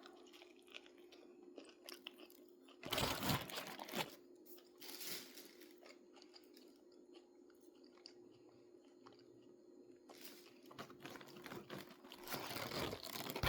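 Someone biting and chewing a crispy fried chicken sandwich: crunching of the breading, louder a few times between about three and five seconds in, with softer chewing sounds in between. A faint steady hum runs underneath.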